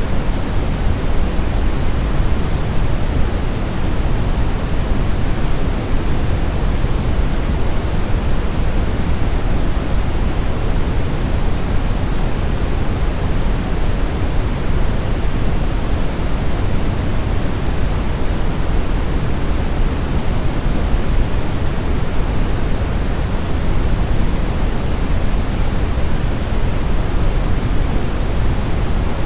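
Steady synthetic brown noise: an even, unbroken rushing hiss weighted toward the deep end, with no changes or events.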